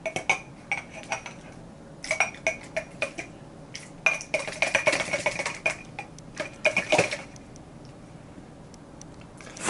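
Aluminium drink can knocking and clinking against the rim of a ceramic mug as it is held upside down over it, a string of short clinks with a slight ring over the first seven seconds or so; the thick jelly inside is barely coming out.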